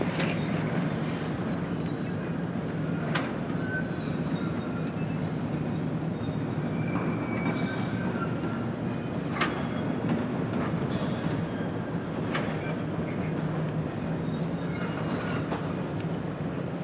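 Hydraulic excavator working on demolition debris: a steady engine hum with scattered metal clanks and many short, high metallic squeals.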